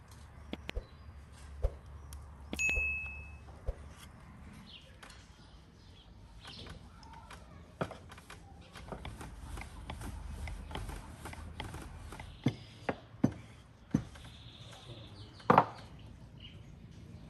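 Food-preparation sounds on a wooden table: scattered taps and knocks, a short high ding a couple of seconds in, and a wooden rolling pin rolling out dough through the middle stretch. A few sharp knocks come near the end.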